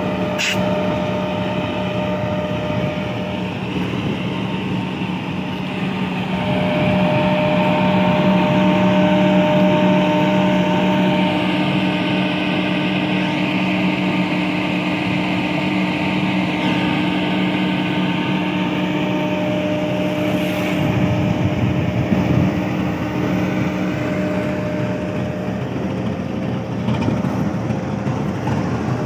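GE U40 (GEU40 class) diesel-electric locomotive standing with its engine idling: a steady engine hum with a few held tones over an even rush of fan and blower noise.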